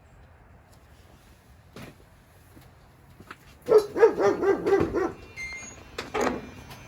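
Dog barking: a quick run of barks starting a little over halfway through, then another bark or two shortly after.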